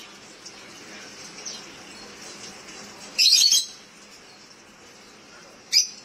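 A caged green parakeet calling: one loud shrill shriek about three seconds in, lasting about half a second, and a shorter high call near the end.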